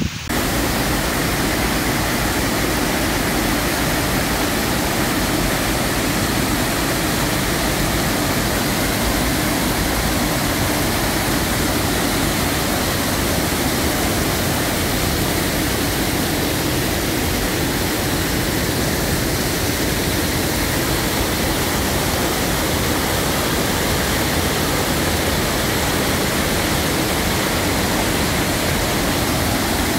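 Muddy floodwater of a river in spate rushing over rocks and spilling over a wall: a loud, steady, unbroken rush of water.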